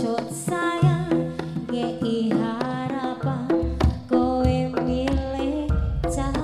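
A woman sings a Javanese jaranan song in sinden style through a microphone and PA. She is accompanied by a gamelan ensemble with hand-drum strokes and gongs, keeping a steady rhythm.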